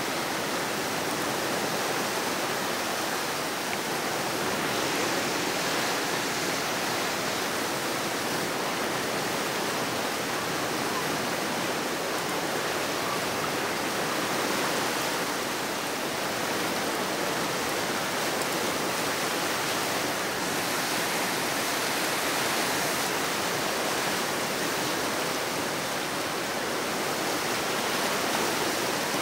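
Steady rush of fast-flowing river water past a moving raft: an even, unbroken hiss.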